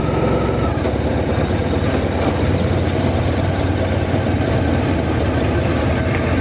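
Honda Crosstourer's V4 engine running at low speed as the motorcycle rolls slowly and pulls up: a steady low rumble.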